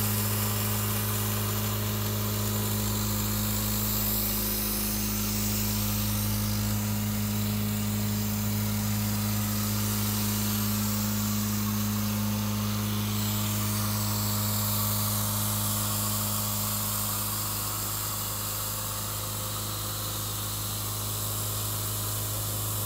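Twin-lobe Roots blower of a cement bulker unloading system running steadily: a deep, even hum with a loud hiss of rushing air as it blows cement powder through the hose into the silo.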